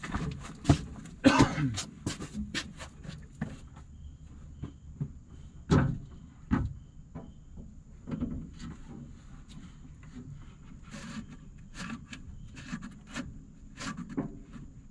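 Scattered knocks, clicks and rustling of a hydraulic pilot hose being shoved through the hose loom under an excavator, the loudest knocks about a second in and near six seconds in.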